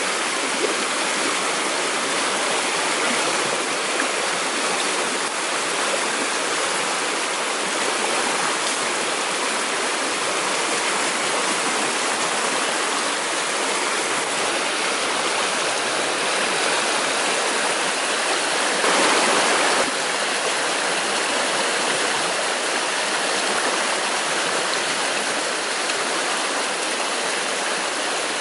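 Steady rushing of a fast-flowing stream tumbling over rocks, with a brief louder surge about two-thirds of the way through.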